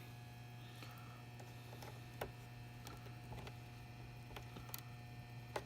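Faint, scattered clicks and taps of hands and tools handling a plastic computer-drive case, over a steady low hum.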